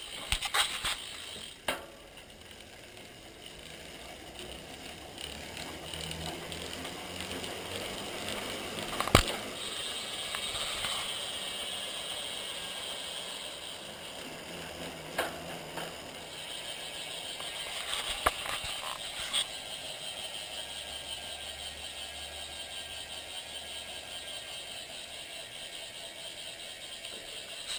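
DT Swiss R1850 rear hub freewheeling: a steady ratcheting buzz as the spun wheel coasts, swelling each time the pedal drives it again, with several sharp knocks along the way.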